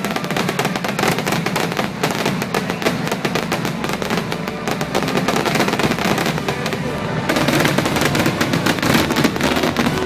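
Fireworks display going off in a rapid, continuous barrage of crackles and bangs, growing denser near the end.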